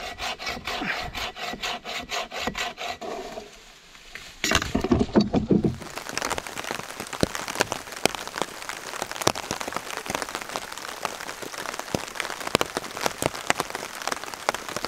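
A hand saw cutting a dead tree limb in quick, even strokes, about three or four a second, stopping about three and a half seconds in. After a short loud sound, steady rain falls on a tarp overhead, with many small drop hits.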